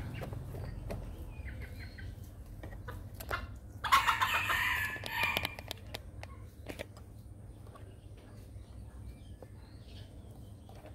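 Red junglefowl rooster crowing once, a short crow of about a second and a half starting about four seconds in.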